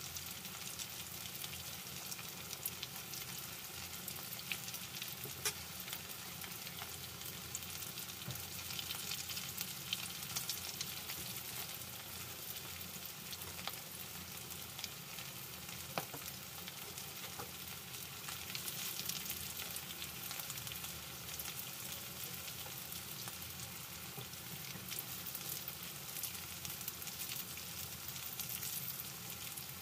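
Eggplant omelette patties (tortang talong) sizzling as they shallow-fry in bubbling oil: a steady hiss with scattered crackles and pops.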